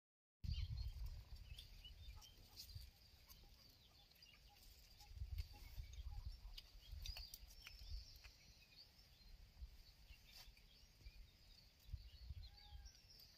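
Faint outdoor ambience: gusty low rumble, a steady high hiss and scattered clicks. A couple of short rising-and-falling animal calls come near the end.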